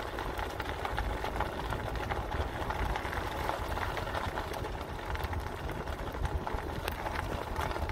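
Car driving along a road: steady low engine and tyre rumble with faint scattered ticks.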